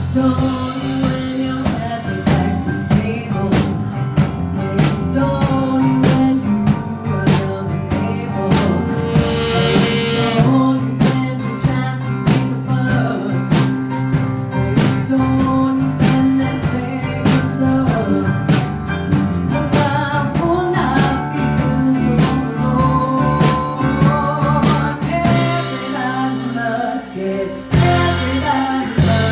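A small live band playing a bluesy rock song with a steady drum beat: a woman's lead vocal over electric bass, acoustic guitar, keyboard, saxophone and drum kit.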